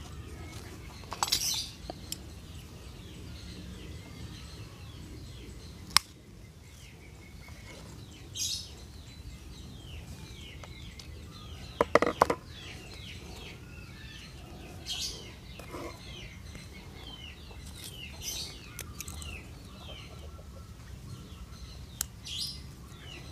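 Small birds chirping in short bursts every few seconds, over a steady low background hum. Two sharp single clicks, one near the end, and a short louder noise about midway.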